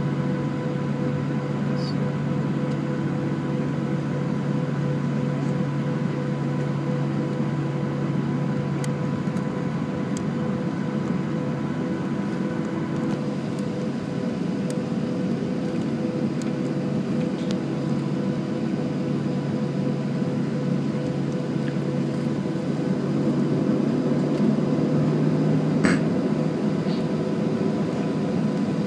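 Steady cabin noise inside a Boeing 737 taxiing: the idling turbofan engines hum with several steady tones over the rush of cabin air. The noise swells slightly a few seconds before the end, with a single sharp click.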